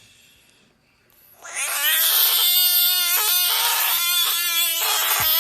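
An animal's long, drawn-out pitched call, starting about a second and a half in and held at a fairly steady pitch with a few short breaks.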